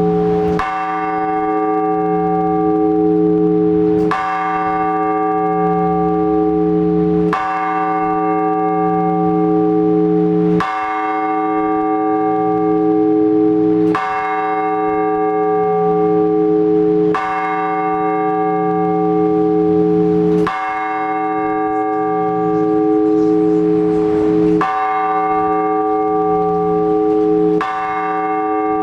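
One large Orthodox church bell struck slowly and evenly, nine strokes about three seconds apart, each ringing on with a deep hum until the next. This slow single-bell tolling is the blagovest that calls worshippers to the all-night vigil.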